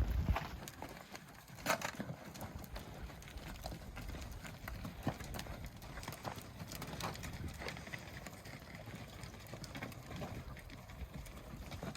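Hooves clopping and shuffling at an irregular pace, a steady scatter of short knocks, as livestock move about.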